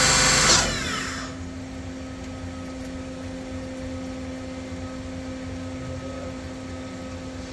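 CNC Swiss lathe's spindle running at high speed, then shutting off about half a second in and spinning down with a falling whine. The machine then hums steadily at idle, with a low constant tone.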